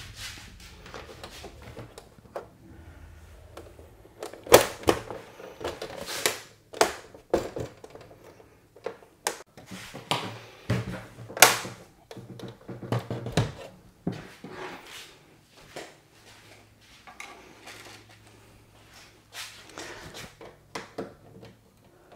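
Irregular plastic clicks, knocks and scrapes as the rear housing of a Dell U3415W monitor is pried loose from its frame and handled, with two louder knocks about four and a half and eleven and a half seconds in.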